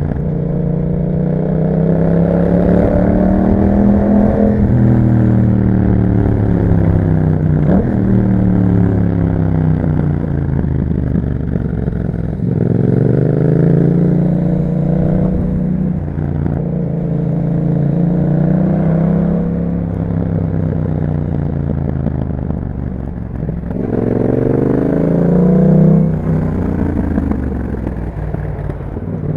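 2021 Yamaha MT-07's 689 cc parallel-twin engine through an Akrapovic exhaust, under way. The revs climb and drop again and again as it pulls through the gears, with a sharp rev rise that cuts off about 26 seconds in.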